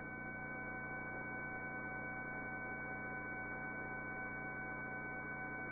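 Faint steady electrical hum from the helicopter's intercom audio feed: several fixed tones at once over a low hiss, unchanging throughout.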